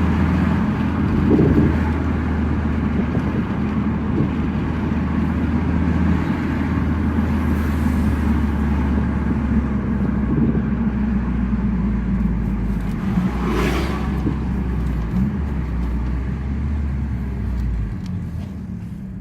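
2009 Mazdaspeed3's turbocharged 2.3-litre four-cylinder running steadily on the road with tyre and road noise, with no knock heard, running smoothly on new spark plugs. A brief sharp noise comes about two-thirds of the way through, and the engine drone drops away near the end.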